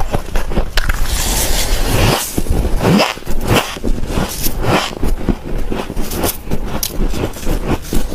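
Dry frost chunks being crushed and bitten: a dense, irregular run of crisp crunches and squeaks, several a second.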